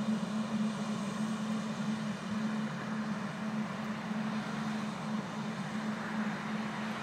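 A tractor-mounted C&N Bug Vac, a vacuum for lygus bugs, running as it works along the crop rows: a steady mechanical drone of the tractor engine and the vacuum's blower fans, with a low hum that wavers slightly.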